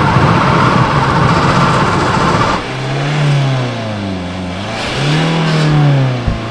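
Car doing a burnout: a steady roar of high-revving engine and spinning tyres. About two and a half seconds in it drops off suddenly, and the engine then revs up and down a few times.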